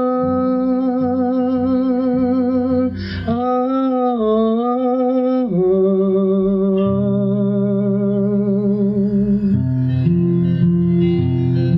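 Worship song: a voice holds long drawn-out sung notes with a slight vibrato over guitar accompaniment, the low notes changing about ten seconds in.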